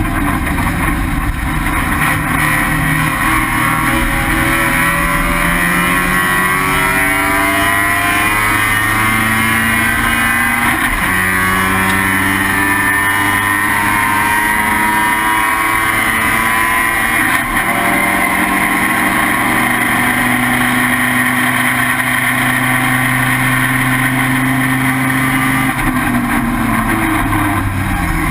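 First-generation Mazda RX-7's rotary engine at racing speed, heard from on board. Its pitch climbs under full throttle, with upshifts about 11 and 17 seconds in, holds fairly steady, then falls off near the end as the car lifts for a corner.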